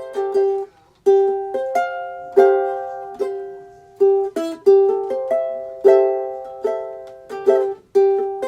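Ukulele strummed in chords, each strum ringing out and fading, with a brief break about a second in.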